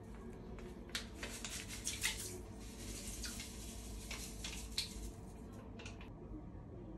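Bath-powder granules shaken from a paper sachet onto bathwater: a crackly, rustling pour with the crinkle of the packet, starting about a second in and stopping about six seconds in.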